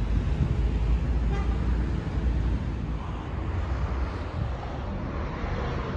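Road traffic: a steady rumble of cars passing on a busy multi-lane road.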